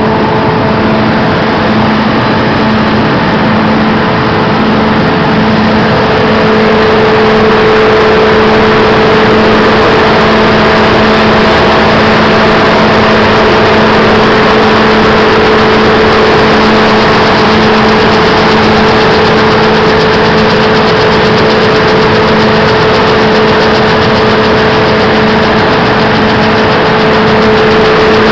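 Gravity separator running loaded with palm kernels and shells: a loud, steady machine hum with a constant whine on one note. Under it is a dense, even hiss of kernels and shell pieces rattling across the vibrating, air-blown deck.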